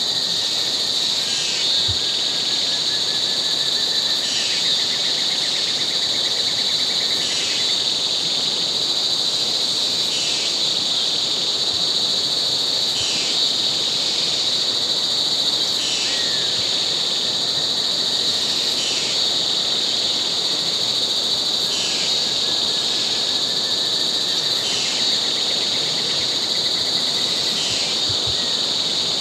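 Tropical rainforest insect chorus: a steady, high-pitched droning buzz, with short descending calls repeating about every three seconds.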